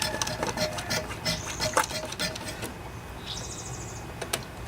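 Clicks and handling noises from a small hand pump being worked to drain gasoline from a lawnmower's fuel tank, dying down about two and a half seconds in. A short bird trill comes near the end.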